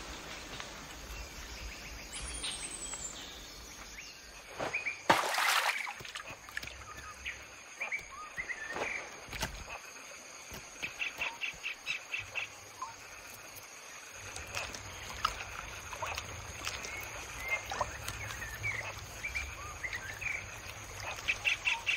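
Forest ambience: birds chirping and calling, with two fast trills of evenly repeated notes and a steady high-pitched tone underneath. A brief louder burst of noise about five seconds in.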